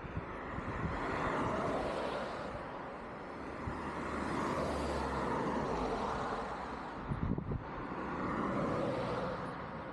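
Cars passing on a street one after another, each swelling and fading as it goes by, with a few brief low thumps between them.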